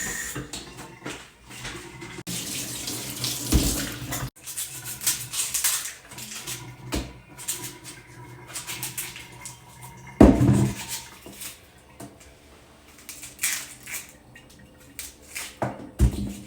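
Water from a kitchen tap splashing into a sink as something is rinsed, with a few dull knocks, the loudest about ten seconds in.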